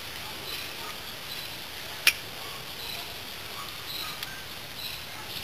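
A single sharp metal click about two seconds in, with a fainter one near the end, as the cam sprocket and timing chain of a small single-cylinder four-stroke quad engine are worked by hand. Faint high chirping runs underneath.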